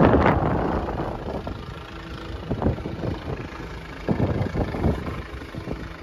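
Gusty wind buffeting the microphone, strongest right at the start and again in a few shorter gusts later on, over a faint steady engine hum.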